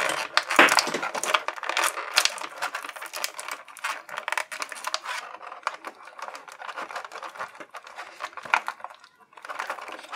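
Thin clear plastic blister tray crackling and clicking as an action figure is pried out of its moulded slot. The crackling is dense for the first half, then thins to scattered clicks.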